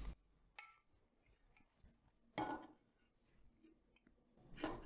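Mostly near silence, with a faint click about half a second in and a brief soft knock about two and a half seconds in, as a metal floor-stand column is set into the socket of its base.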